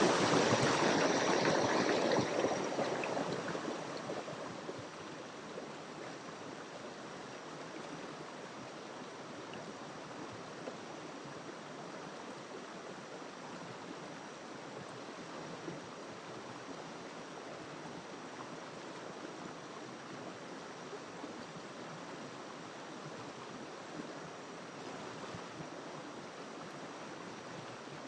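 River water flowing over its bed: a steady rushing stream, louder for the first three seconds and then settling to an even level.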